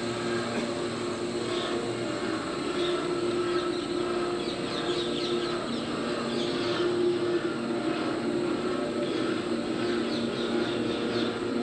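Steady street traffic with a low droning engine tone, and small birds chirping in quick high twitters, most busily in the middle and again near the end.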